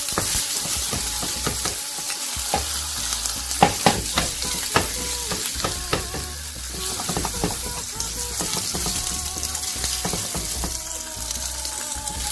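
Yellow bell pepper pieces and red onion sizzling in hot oil in a frying pan as they sauté, a steady hiss with scattered sharp pops and clicks, most of them around the middle.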